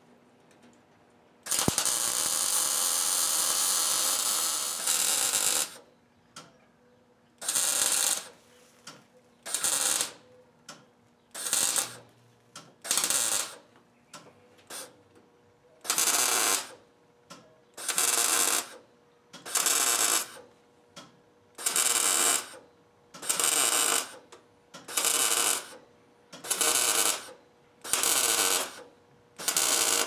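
MIG welder laying weld on sheet-steel firewall patch panels: one crackling bead of about four seconds, then a long run of short stitch welds, each under a second and spaced about two seconds apart, over a faint steady hum.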